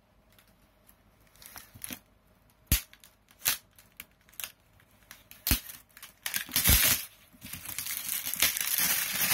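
Clear plastic shrink wrap being torn and pulled off a cardboard box. A few sharp snaps come first, then from about six seconds in a continuous, loud crinkling of the plastic.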